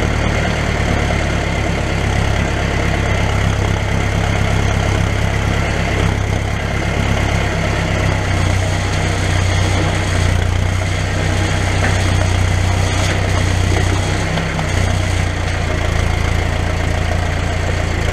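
Diesel engine and exhaust of a site dumper running steadily as it drives with a skip load of soil, a loud low engine note throughout.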